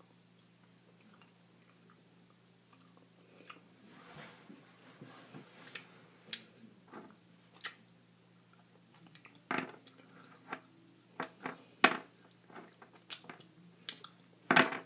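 Chewing of a gummy jelly slug candy with the mouth: wet smacks and clicks. It is quiet at first and grows more frequent and louder from about four seconds in.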